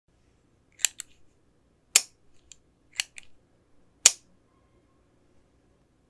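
A few sharp, isolated clicks, roughly one a second, with a couple in quick pairs and the last one loudest, over faint room hum.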